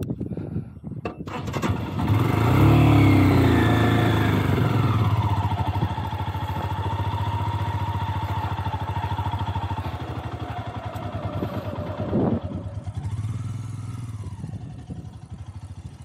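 Motorcycle engine revving up about two seconds in and pulling away over sand, then running steadily under load before easing off near the end. A single thump about twelve seconds in.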